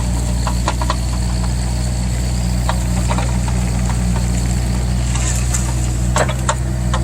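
Mini excavator's diesel engine running steadily, with scattered sharp clicks and knocks over it, several close together about six seconds in.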